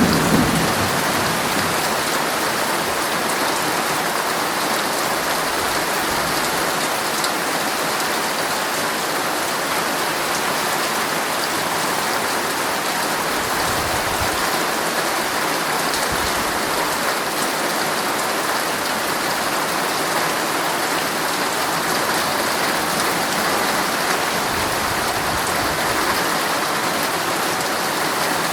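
Heavy rain pattering steadily on a tent's fabric, a dense even hiss of drops with no letup. A brief low thump comes right at the start.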